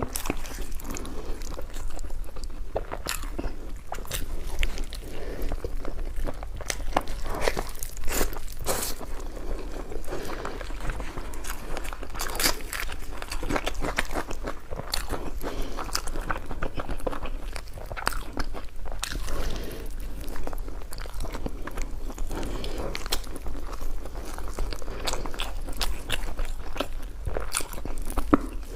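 Close-up eating sounds: someone biting, crunching and chewing food, with many irregular wet clicks and crackles.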